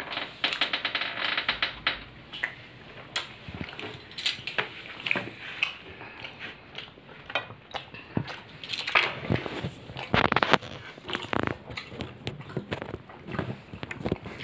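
Close-up eating sounds of a person eating paratha with soybean curry by hand: the flatbread torn and chewed, heard as a string of short crunches, clicks and mouth noises.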